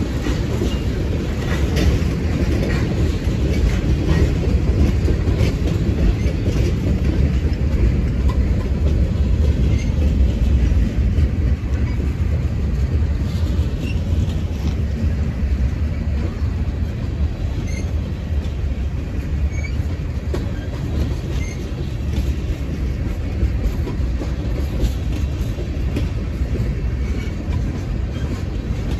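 Freight cars of a CN train rolling past, a steady rumble and rattle of wheels on the rails with faint, brief squeals now and then.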